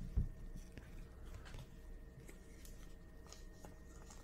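Faint rustling and light clicking of cardboard baseball trading cards being handled and flipped over, with one soft knock just after the start.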